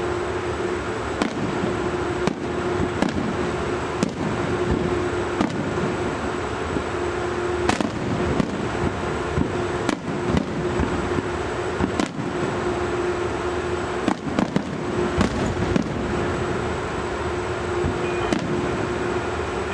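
Fireworks going off: irregular sharp bangs, some in quick clusters, over a steady background hum.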